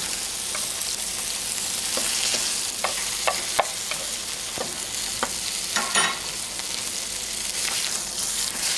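Beef steak sizzling steadily in hot fat in a frying pan over medium-low heat while being basted with a spoon. Scattered clicks and taps of the metal spoon against the pan break through the hiss, most of them about six seconds in.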